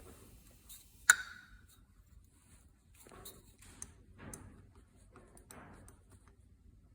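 Small hard parts being handled: one sharp click with a brief ring about a second in, then a few soft rustling, scraping handling sounds.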